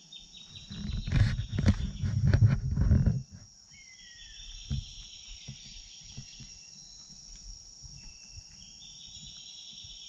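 A loud low rumble with a few knocks for about the first three seconds. Then a rainforest insect chorus: a steady high buzz with trills that swell and fade, and a short falling call about four seconds in.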